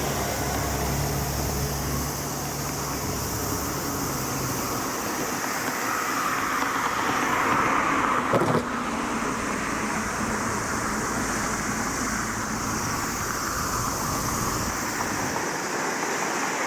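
Traffic noise at a level crossing. A low engine hum dies away in the first few seconds, then a passing vehicle swells and fades about halfway through, with one sharp knock at its loudest point.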